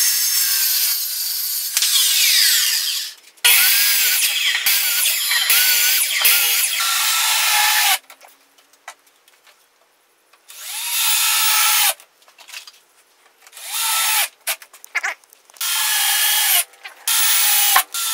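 A circular saw cutting through an OSB sheet in two long runs. After a short lull, a cordless drill drives screws into OSB in short bursts that start and stop.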